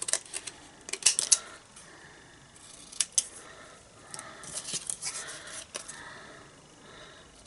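Scissors cutting a shape out of card freehand. They snip in short runs: a quick cluster about a second in, a single snip at about three seconds, and a longer run of snips past the middle.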